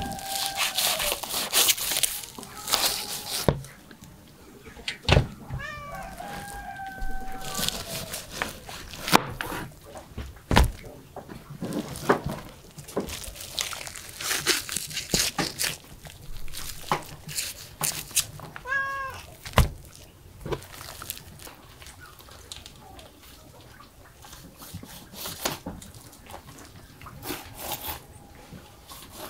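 A knife cutting through raw meat and fat on a wooden board: wet slicing and tearing with knocks of the blade on the board. A cat meows several times, near the start, around six seconds in and again around nineteen seconds in.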